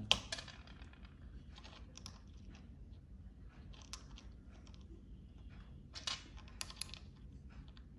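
Light, irregular clicks and scrapes of clam shells being handled and pressed together as they are hot-glued in place, with a brief run of sharper clicks about six seconds in.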